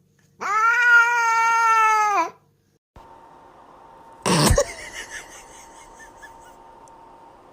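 A cat's long, drawn-out meow of about two seconds, bending down in pitch at the end. A few seconds later comes one short, sharp, noisy burst.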